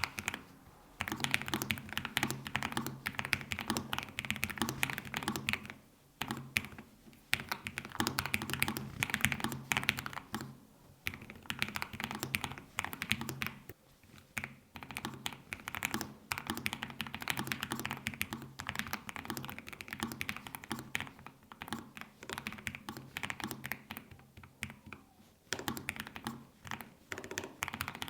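Fast typing on a Lofree Flow low-profile mechanical keyboard with Kailh switches: a rapid clatter of keystrokes in runs, broken by short pauses several times.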